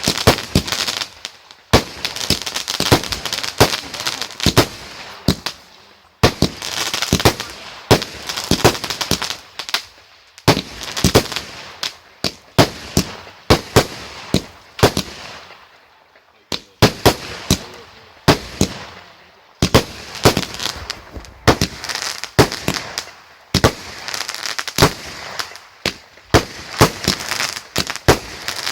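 Fireworks going off in rapid volleys of sharp bangs and crackling, like a barrage, with brief lulls every few seconds between volleys.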